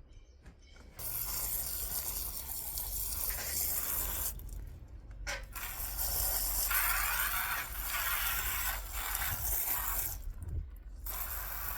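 Water spraying onto plants and soil, a steady hiss that starts about a second in and stops twice briefly.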